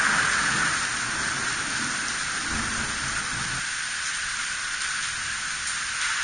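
Steady rain hissing, with the low rumble of thunder dying away about halfway through.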